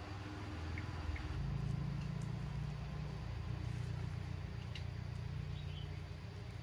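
A steady low mechanical hum, like a motor running nearby, that swells up about a second in and holds on.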